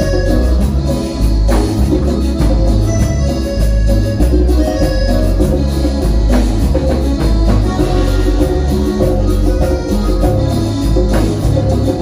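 Live Latin dance-band music, loud, with a heavy bass and drum beat under pitched instrument lines.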